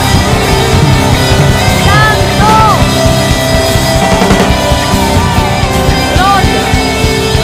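Live rock-style worship band playing, with voices singing along in long, gliding notes.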